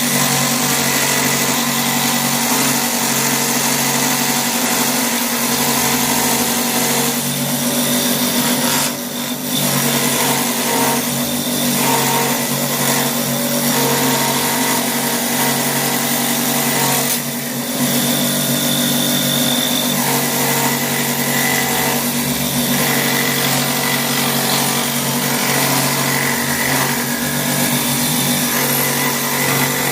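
Cordless die grinder running steadily with a carving bit cutting into black walnut wood, dipping briefly twice as it eases off.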